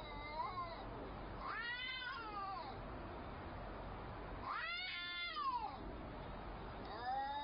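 Two domestic cats in a face-to-face standoff, yowling at each other in long drawn-out calls that rise and fall in pitch, one every two to three seconds, with a new yowl starting near the end.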